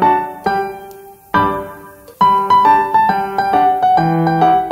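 Background piano music: a light melody of struck notes, with a short lull about a second in before the notes pick up again.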